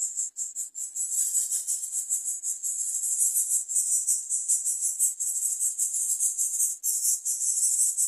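Steady, high-pitched buzzing of insects, pulsing rapidly, with a couple of brief dips in the first second and another about seven seconds in.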